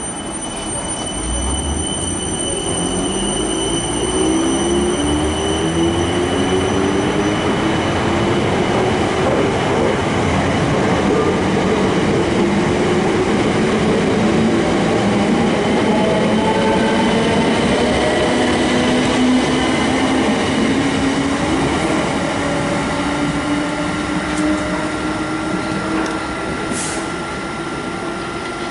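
Class 455 electric multiple unit pulling away, its traction motors whining in several tones that rise steadily in pitch as it gathers speed, over the rumble of wheels on rail. A steady high whine comes in near the end.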